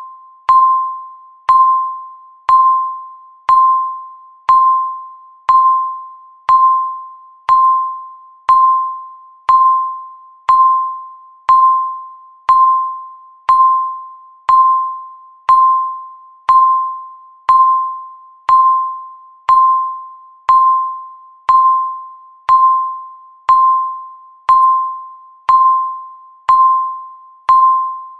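Countdown timer beeping once a second, each beep a single pitch with a sharp start that fades away before the next, about 28 beeps in a row.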